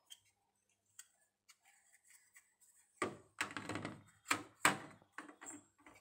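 Plastic clicking and clacking as the lint filter of a Samsung top-load washing machine is unclipped and pulled out of the drum. A few faint clicks come first, then a run of sharp clacks and rattling in the second half.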